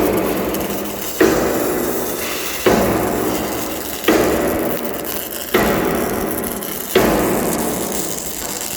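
Hammer striking steel in a slow, even rhythm: six heavy blows about a second and a half apart, each ringing out and dying away slowly.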